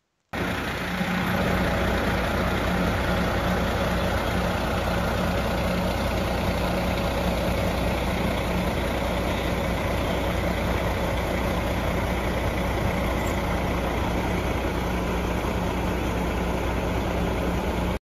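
Fire engine idling steadily: a constant low engine hum under an even rushing noise. It cuts in abruptly just after the start.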